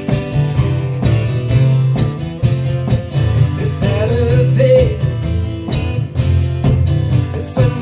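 Acoustic guitar strummed in a steady rhythm, with a brief wavering voice-like line about four seconds in.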